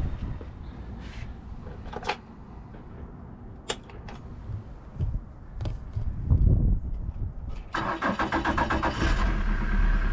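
A few sharp knocks over wind rumble, then a boat's outboard motor starts about three-quarters of the way through and settles into a smooth, steady idle, purring like a kitten.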